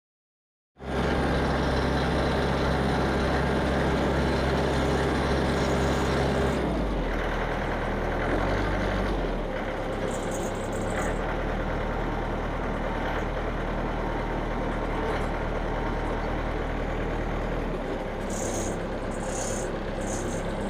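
Engine running steadily, dropping in pitch about seven seconds in and again a few seconds later.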